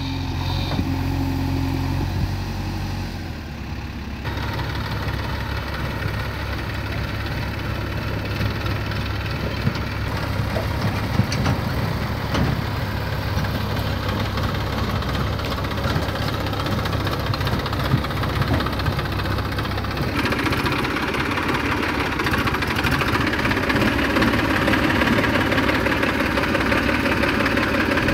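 Diesel engines of a JCB 3DX backhoe loader and a New Holland tractor running steadily, with a few brief knocks. The engine sound grows louder and fuller from about twenty seconds in.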